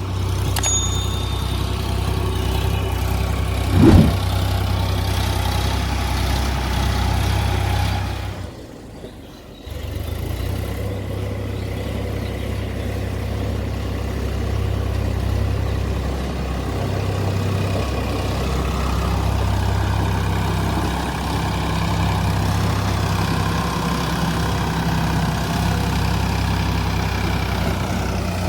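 Diesel engine of heavy earth-moving machinery running steadily. A loud single knock comes about four seconds in, and the engine sound drops out briefly near nine seconds before resuming.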